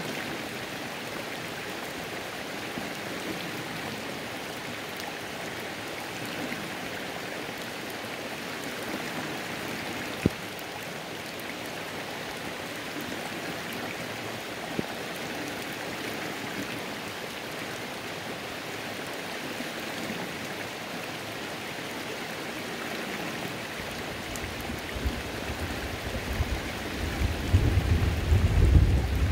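Steady rain falling on a flowing creek. About 25 seconds in, a low rumble of distant thunder builds and is loudest near the end.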